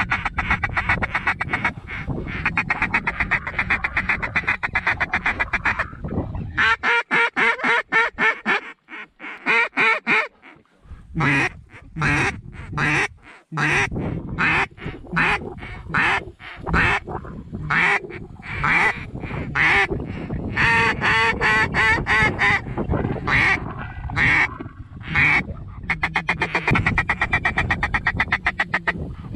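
Mallard duck calls blown in the blind to work birds that are landing. A rapid, even feeder chatter runs for about six seconds, then comes a long string of single and doubled quacks with short gaps, and the fast chatter returns near the end.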